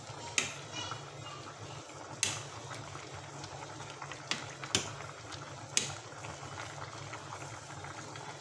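Pork sinigang broth bubbling in a metal pot on the stove, with a metal ladle stirring it and clinking sharply against the pot five times in the first six seconds.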